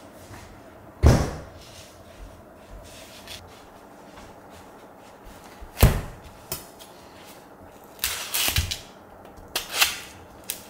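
A refrigerator shutting with a thud about a second in, then a foam meat tray knocked down onto a plastic cutting board near the middle. Towards the end a kitchen knife pierces and slits the plastic wrap over raw pork belly, with crackling of the film.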